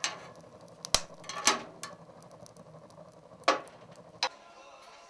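Fire burning in a stove's firebox, crackling over a low rumble, with about five sharp pops, the loudest about a second in and at three and a half seconds.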